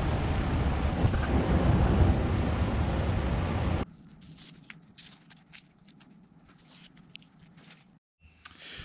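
A steady rushing noise with a low rumble, which cuts off abruptly about four seconds in. After that come faint scattered clicks and taps of small metal parts being handled.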